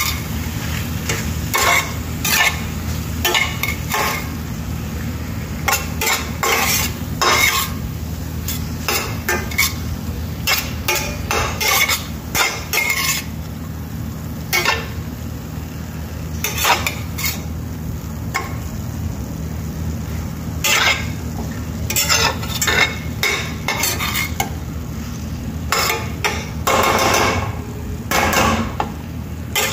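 Metal slotted spatula scraping and tossing penne and spinach around a stainless-steel frying pan in quick, irregular strokes, over a steady low hum.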